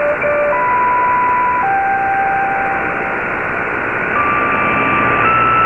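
Weak, noisy shortwave AM broadcast from Radio Havana Cuba on 15140 kHz through an Icom IC-R8600 receiver: steady hiss with the treble cut off, and steady whistle-like tones that jump to a new pitch every second or so.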